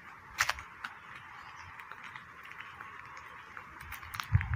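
Footsteps on a paved lane: a few sharp clicks over a steady, high background drone. A low rumble of wind on the microphone starts near the end.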